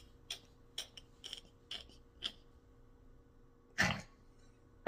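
Quiet, breathy stifled laughter: a run of short laughing breaths about twice a second, then a louder puff of breath near the end.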